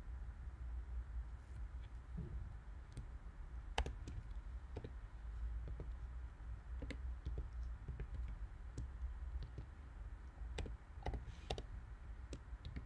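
Computer keyboard keys tapped one at a time as a short line of text is typed: slow, irregular clicks over a faint low hum.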